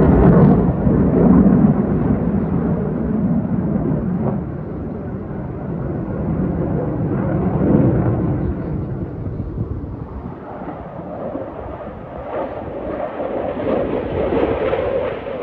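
Jet noise from Blue Angels F/A-18 Hornets flying overhead: a deep, rumbling roar, loudest at the start, easing off about ten seconds in and building again near the end.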